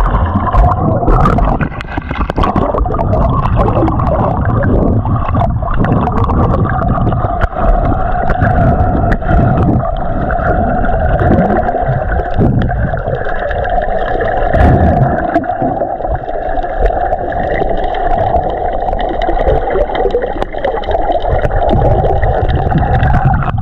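Muffled underwater sound picked up by an action camera in its waterproof housing: a low rumble and gurgling of water, with a steady hum through the second half and scattered clicks.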